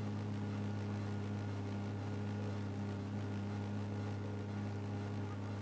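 A steady low hum that never changes in pitch or level, with a fainter higher tone above it.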